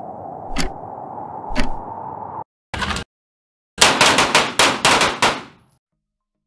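Several handguns firing on an indoor range: a quick string of about eight shots, starting near four seconds in, is the loudest thing heard. Before it, a steady droning sound with a heavy thud about once a second cuts off abruptly, and a short burst of noise follows near three seconds.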